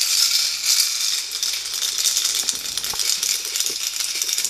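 A small plastic Hello Kitty toy being shaken, rattling continuously with a dense, high-pitched clatter.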